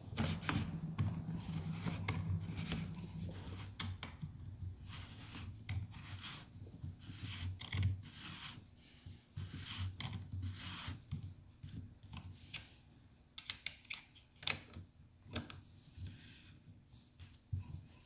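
Metal parts being handled as an axle is worked into a bicycle fork through tight-fitting spacers, shims and bushings: irregular scraping, rubbing and clicking of metal on metal. A low hum sounds under the first few seconds.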